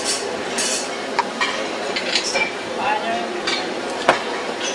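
Busy ambience of a crowded clay workshop: background chatter with scattered sharp clicks and clinks of tools and objects knocked on work tables, the loudest about four seconds in.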